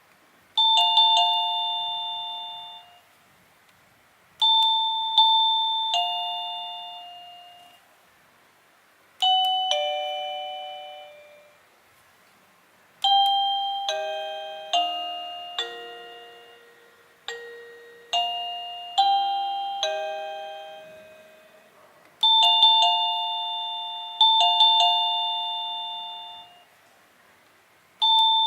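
Wireless doorbell chime receiver playing a run of its preset tunes: short falling ding-dong style chimes, then a longer tune of about ten notes, then the ding-dong again. Each note is a clear electronic bell tone that fades away over a second or two.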